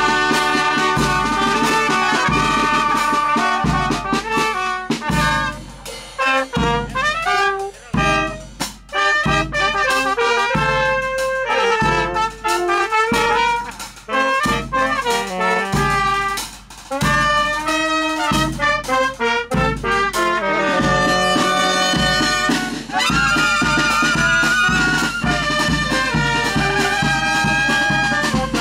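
Charanga brass band playing, trumpets and trombones carrying the tune over a bass drum beating about once a second, the beat quickening in the last third.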